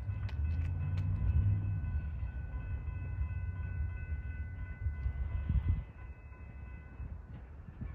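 Train rolling past with a low rumble and a few wheel clicks; the rumble drops off about six seconds in as it moves away. Faint steady high-pitched tones sound over it.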